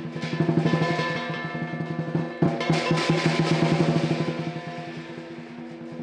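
Southern lion dance percussion: the lion drum beating fast rolls under steadily ringing metal percussion. A sharp loud strike about two and a half seconds in sets off a louder run of rapid drum strokes that fades toward the end.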